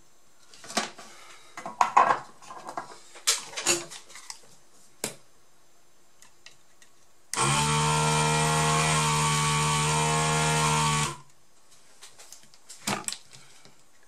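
Desoldering gun's vacuum pump running steadily for about three and a half seconds, starting about seven seconds in, sucking molten solder off a laptop power-jack pin so the pin comes free. Before it, and again near the end, light clicks and taps of tools against the circuit board.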